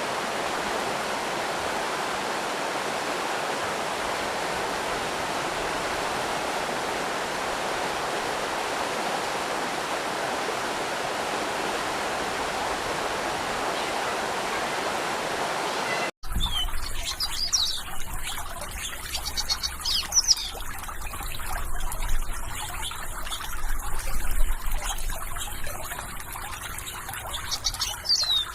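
Steady rush of flowing water, like a stream or small waterfall. About sixteen seconds in it cuts off abruptly to a different recording: birds chirping in short high calls over trickling water and a low rumble.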